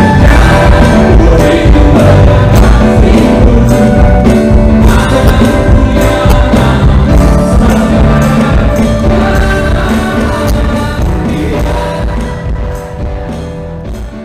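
Live church worship band playing a gospel song, with electronic keyboard, drums and violin under singing. The music fades out gradually over the last few seconds.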